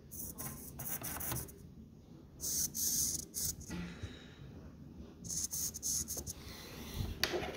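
Handling noise as wires and small RC components are moved about: two stretches of hissing rubbing, about two and a half seconds in and again past five seconds, and a short knock near the end.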